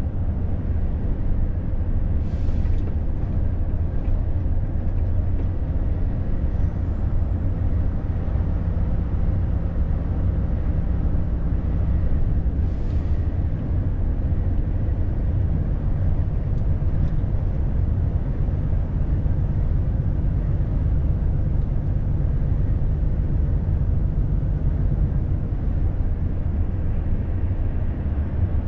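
Cab interior of a Volvo FH truck cruising at motorway speed: a steady low engine and road drone. There are two brief hisses, one about two and a half seconds in and another about thirteen seconds in.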